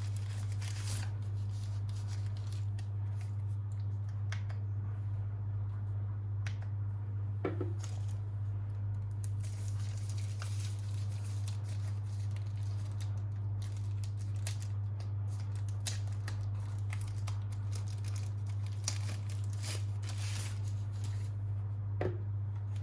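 Soft, intermittent rustling and crinkling of packaging being handled and opened, over a steady low hum.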